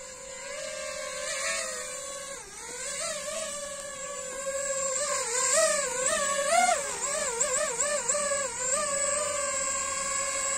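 DJI FPV drone's propellers whining as it descends and comes in close, getting louder. From about halfway the pitch wavers rapidly up and down as the motors keep adjusting thrust while it hovers low.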